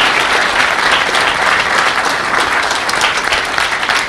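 Audience applauding at the close of a talk: dense, steady clapping.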